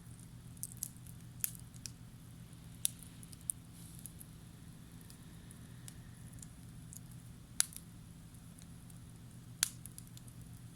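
Wood campfire crackling with scattered sharp pops, the two loudest near the end, over a steady low hum.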